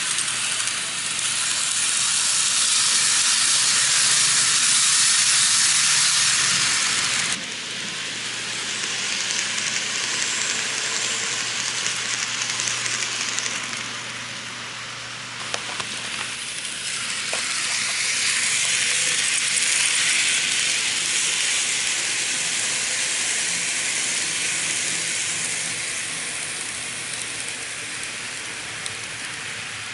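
N-gauge model trains running on the track: a steady hissing whir of tiny motors and metal wheels on rail. The sound changes abruptly about seven seconds in, with a few light clicks around the middle.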